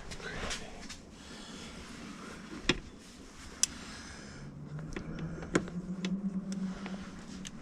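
Light clicks and clinks of small hand tools being picked up and handled, a few of them sharp. A low steady hum joins in about halfway through.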